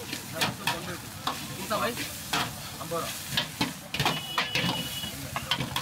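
Steel ladle scraping and knocking against a large iron wok as chicken fried rice is stir-fried and tossed, with irregular clanks several times a second over the sizzle of the rice.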